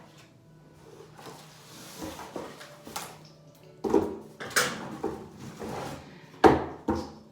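Vacuum cleaner box and packed parts being handled and taken out: rustling and scraping with several sharp knocks, the loudest about four seconds in and again near six and a half seconds.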